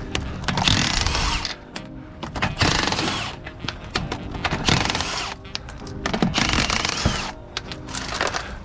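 Impact wrench running in short bursts of under a second, about every two seconds, working a car's lug nuts.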